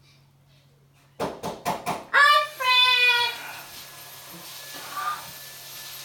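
Yellow-headed Amazon parrot screaming. After a second of quiet come four quick sharp knocks, then one loud scream of about a second, falling slightly in pitch, and a fainter call about five seconds in.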